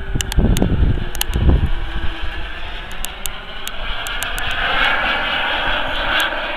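Boomerang Sprint radio-controlled model jet's turbine whining in flight, growing louder in the second half. Low gusts of wind on the microphone in the first second and a half, with scattered sharp clicks.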